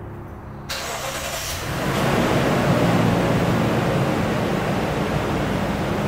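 A motor vehicle engine starting, with a sudden rush of noise about a second in, then building into a loud, steady run.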